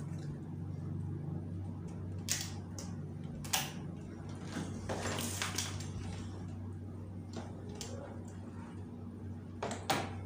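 Scattered clicks and knocks of a rugged convertible laptop (Panasonic Toughbook) being tapped on and handled, its screen swivelled and folded shut, with a cluster of clicks about halfway through and a pair near the end. Under them runs a steady low electrical hum.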